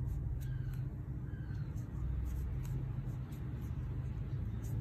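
Steady low background hum with faint scattered ticks.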